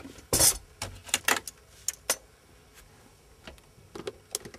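Hand wire cutter or crimping tool snipping a thin wire and clacking in the hand: a quick run of sharp metallic clicks and snaps in the first two seconds, then a few fainter clicks near the end.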